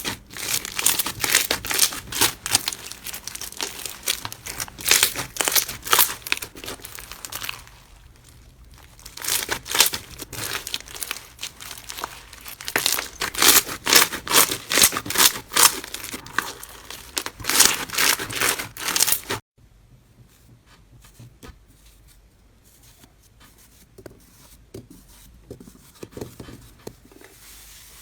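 Slime being squeezed and stretched by hand, making dense crackling and popping in two long runs with a short break about eight seconds in. It cuts off suddenly about two-thirds of the way through, leaving only faint scattered crackles.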